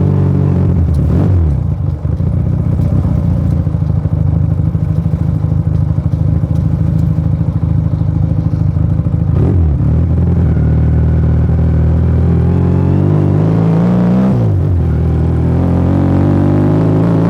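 Motomel Rider 250 motorcycle engine running while riding. The revs drop about a second in and it runs low and rough for several seconds, then climbs and falls twice through gear changes in the second half.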